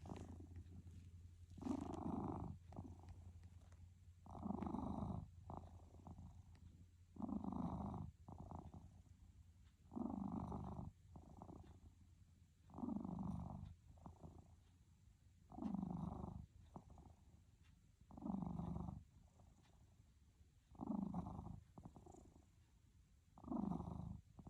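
A sleeping cat snoring in a steady breathing rhythm: about nine snores, one every two and a half to three seconds, each lasting about a second and sliding slightly down in pitch, with quieter breathing between.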